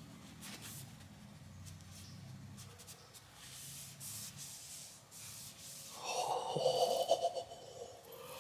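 Faint rubbing and wiping of an oil-soaked paper towel over a knife handle, spreading a linseed oil finish. About six seconds in, a drawn-out voice-like murmur rises over it.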